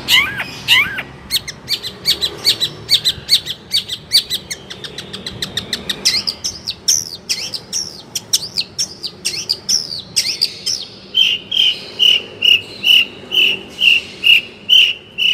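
Long-tailed shrike (cendet) singing a fast run of sharp chattering notes and sweeping whistles. About eleven seconds in it changes to an even series of short repeated notes, about two and a half a second.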